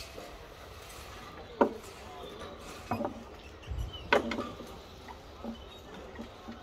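Sharp knocks and clinks from a climber's gear and the rope net on a high-ropes course. Three louder ones come about a second and a half, three and four seconds in, the last the loudest, with a couple of fainter ones after.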